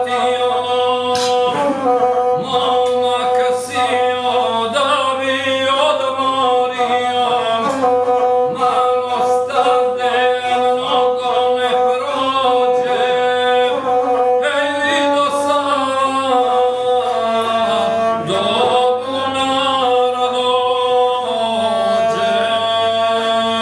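A guslar singing an epic song while bowing the single-string gusle, voice and fiddle together on long held notes with short quavering turns between them.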